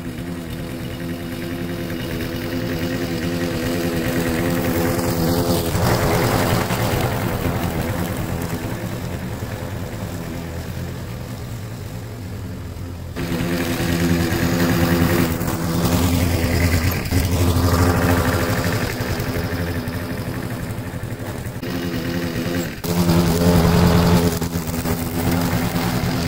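A Briggs & Stratton engine on a walk-behind rotary lawn mower runs at a steady speed while cutting grass. It grows louder and fuller several times.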